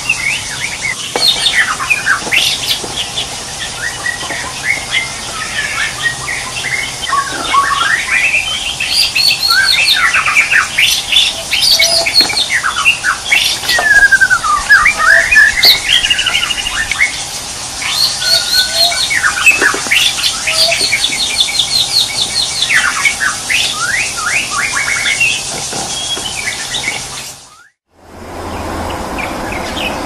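Wild birds chirping and calling in a busy chorus of short whistled notes and quick rising and falling glides. About 27 seconds in it cuts out abruptly, and a steady rushing noise follows.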